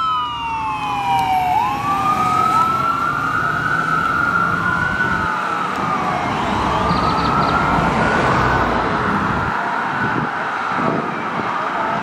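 A 2021 Pierce Arrow XT fire engine's dual wail siren: two siren tones slowly rising and falling out of step with each other, with the truck's diesel engine rumbling underneath as it drives away.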